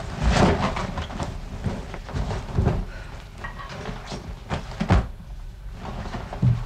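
Irregular knocks, thuds and rustling, with a dense rustle near the start and a sharp knock about five seconds in.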